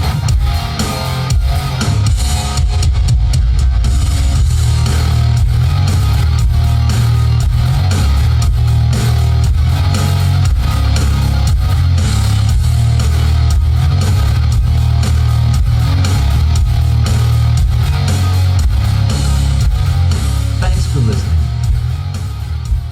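Rock music with guitar and heavy bass played loud through an Electro-Voice ETX-35P three-way powered loudspeaker with dual ETX-18SP subwoofers, fading out near the end.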